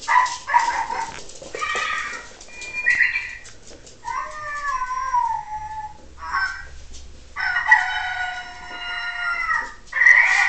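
Electronic animal-noise toy playing recorded animal calls: a string of short calls, one falling in pitch, then a long steady call starting about two-thirds of the way in, with light clicks and taps in between.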